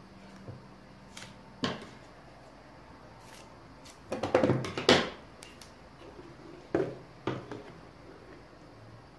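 Double-sided tape being pulled off its roll and handled: a loud run of quick crackling strokes about four seconds in as a length is peeled off, with a few shorter clicks and knocks before and after.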